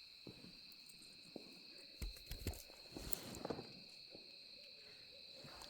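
Faint, steady high-pitched chirring of night insects in the forest, with a few soft knocks and rustles between about two and three and a half seconds in.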